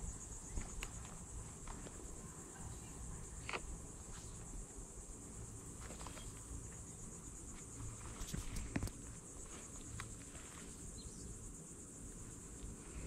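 Steady, high-pitched chorus of insects chirring, with a few scattered soft clicks and rustles, the loudest about 8 to 9 seconds in.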